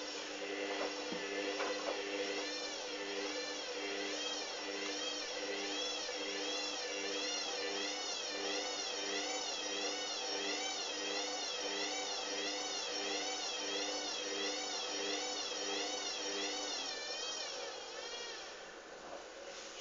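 Hoover Dynamic washing machine motor whining, its pitch wavering up and down about once a second, over a lower hum that pulses on and off in an even rhythm. The sound dies down near the end.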